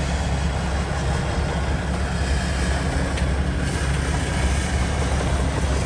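Diesel semi-truck engine running with a steady low rumble as the tractor-trailer creeps down the steel unloading ramps off a railroad flatcar.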